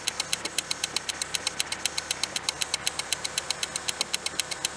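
Rapid, perfectly even ticking sound effect, about eight sharp, bright ticks a second.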